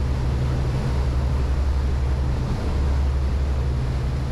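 Pershing GTX 116 motor yacht under way: a steady low drone from its MAN V12 diesel engines, mixed with the rush of water from its water-jet wake.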